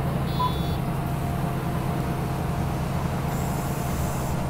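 Steady low rumble of engine and road noise inside a city bus cabin, with a short high beep about half a second in and a brief hiss near the end.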